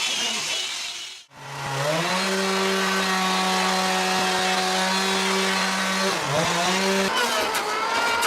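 A power tool's motor speeds up and runs at a steady high pitch. It dips briefly about six seconds in, picks up again, and then cuts out near the end.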